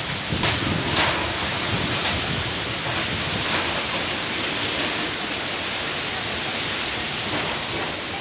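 Steady rushing noise with a few light clicks about half a second and a second in.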